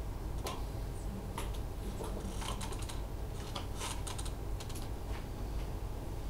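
Irregular light clicks and taps, a few a second, over a steady low room hum.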